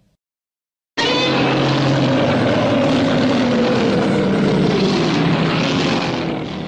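Heisei Godzilla roar sound effect: one long, loud roar that starts abruptly about a second in, its pitch sagging slowly through the middle, and cuts off sharply near the end.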